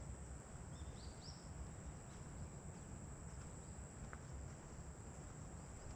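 Outdoor summer ambience: a steady high-pitched insect drone, with a bird's short call of a few rising notes about a second in and a low rumble underneath.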